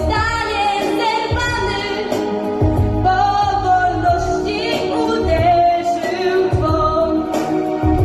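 A young girl singing a patriotic song into a handheld microphone, with held notes that glide in pitch, over an instrumental backing track with a steady low beat.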